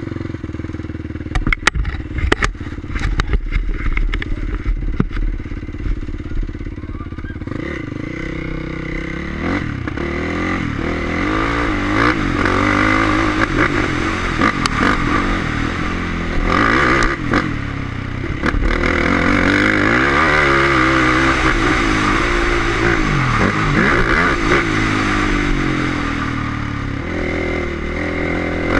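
Dirt bike engine riding a motocross track: a few sharp knocks and clatter in the first seconds, then the engine revving up and down over and over as the rider accelerates, shifts and backs off.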